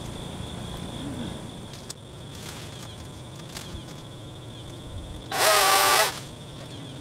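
A small cordless chainsaw runs in one short burst of under a second, about five seconds in, its motor whine rising slightly as it cuts into a fallen branch. A steady high insect trill carries on underneath.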